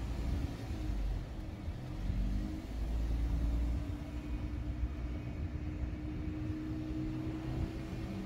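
A steady motor hum over a low rumble, like a vehicle engine running; a held tone in the hum grows stronger about two and a half seconds in.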